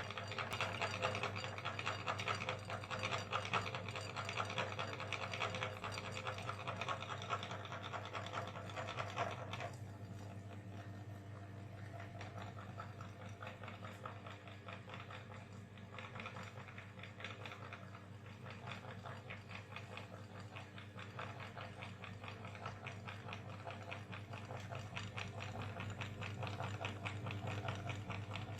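Electric meat grinder running with a steady motor hum and a fast, fine rattle, grinding ice cream. It is louder and fuller for the first nine seconds or so, then runs on more quietly.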